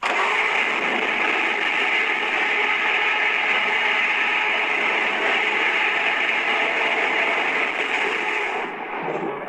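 Godzilla sound effect: a harsh, grating noise that cuts in suddenly, holds steady for about eight and a half seconds and then drops away near the end.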